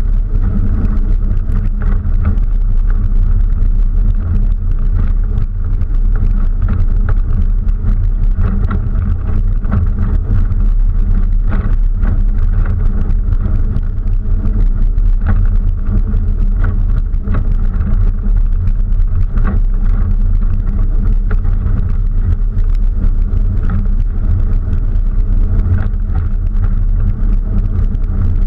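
Open-top 4x4 driving slowly over a rough dirt trail: a steady low engine drone, with frequent short knocks and rattles as the vehicle jolts over rocks and ruts.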